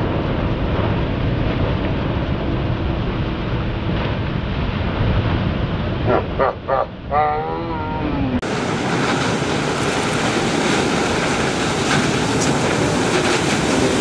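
Large barreling ocean waves breaking in a steady roar of surf. A person's wavering shout comes about six to seven seconds in. About eight seconds in the sound cuts abruptly to a hissier stretch of surf.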